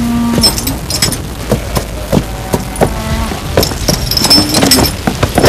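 Jingling and clinking of horse tack with scattered knocks as riders mount saddled horses, and a couple of short held pitched tones over a low steady background.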